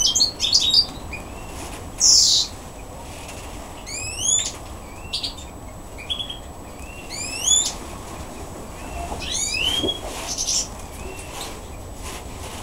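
Caged Eurasian bullfinches calling: a quick cluster of short chirps at the start, then a few rising whistled notes a couple of seconds apart, one of them a rapid run of sweeps near the end. Brief noisy bursts of wing flutter come between the calls.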